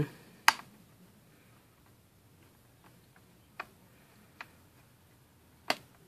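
Scattered sharp clicks of a small screwdriver and fingers against the plastic bottom panel of an HP Pavilion dv5 laptop as the hard-drive cover screw is undone. One loud click comes about half a second in, a few fainter ones follow through the middle, and another loud one comes near the end.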